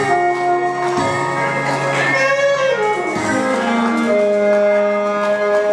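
Saxophone playing a slow melody with accompaniment: long held notes, a falling run about two to three seconds in, then a new held note from about four seconds in.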